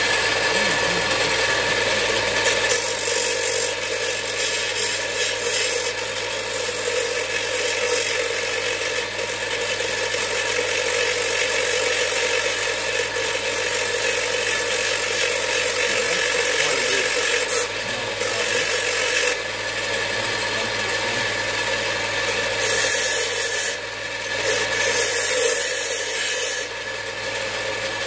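Parkside bench grinder with belt sander running with a steady motor hum while a small metal piece is pressed against the sanding belt and then the grinding wheel. The grinding makes a rasping, hissing noise that comes and goes in stretches and is loudest in the second half.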